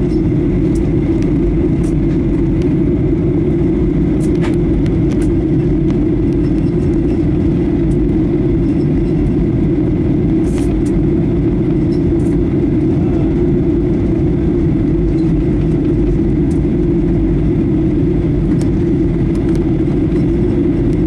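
Steady low drone inside the cabin of a Boeing 737-800 in descent: its CFM56 turbofan engines and the airflow over the fuselage, heard from a window seat by the wing.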